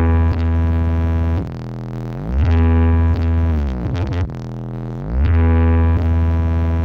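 A carnival sound system, of the huge truck-mounted kind known in East Java as "sound horeg", blasting electronic synthesizer music with very heavy bass. The synth lines slide down and up in pitch every couple of seconds, and the deep bass pulses in long blocks.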